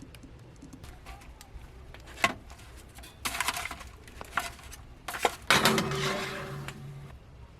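Cookware being handled: pots, pans and utensils clinking and knocking, with two short louder rushes of noise, the second fading away.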